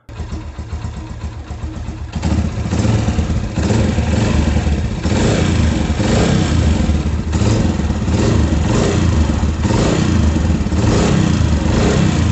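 Motorcycle engine running with its timing chain tensioner freshly refitted, getting louder about two seconds in and then swelling repeatedly as the throttle is worked. There is no excess timing-chain noise: the owner judges the engine sound completely normal.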